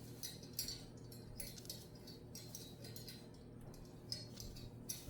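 Small metal bell being rung by a cockatoo: irregular light jingling clinks, several a second, with short gaps between.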